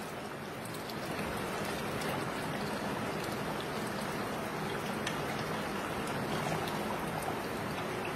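Chicken korma gravy bubbling steadily in an open pressure cooker on the stove, a little louder about a second in, with a few faint taps as eggs are lowered in on a spoon.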